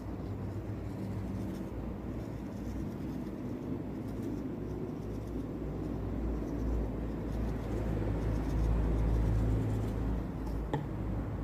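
A steady low rumble that slowly grows louder, with one short click about ten and a half seconds in.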